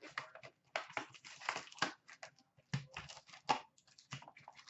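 Foil-wrapped Upper Deck hockey card packs and their cardboard box being handled, crinkling and rustling in short irregular bursts.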